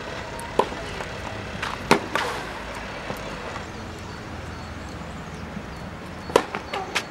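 Tennis balls struck by rackets during a rally on a clay court: sharp pops, one about half a second in and a louder one near two seconds, then several close together near the end.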